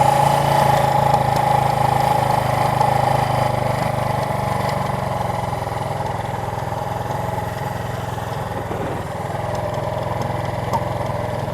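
A 1977 Suzuki GS400's two-cylinder engine idles steadily and gradually gets quieter as its idle is turned down with a screwdriver. The idle had been set a little too high.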